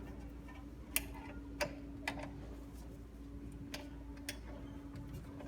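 About five sharp metallic clicks, spaced irregularly, from a wrench tightening a reverse-threaded gauge wheel adjustment, over a steady low hum.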